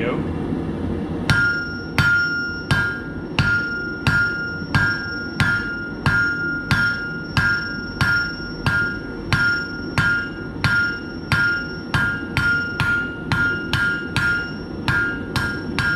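Hand hammer striking a hot steel bar on an anvil while drawing out a point, in steady blows about one and a half a second that start about a second in. The anvil rings at each blow over a steady low rushing noise.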